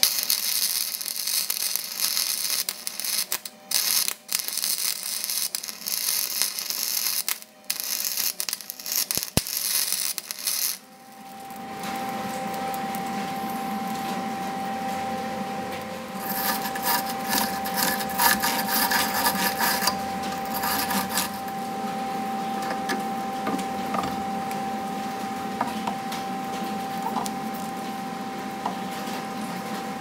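Wire-feed welder arc crackling and sputtering in stop-start runs, set to low heat and a slow wire feed, as weld is built up inside a chrome socket. After about eleven seconds the arc stops and a steady hum with one constant tone carries on, with some faint crackling for a few seconds midway.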